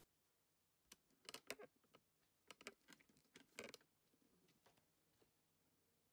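Near silence with a scattered run of faint, short clicks and ticks.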